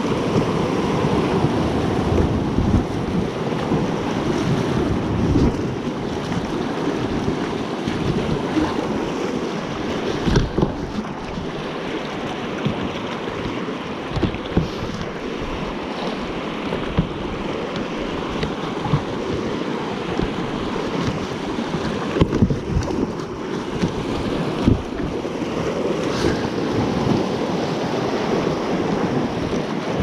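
River rapids rushing and splashing around a small inflatable raft, a steady whitewater rush with occasional thumps and wind on the microphone.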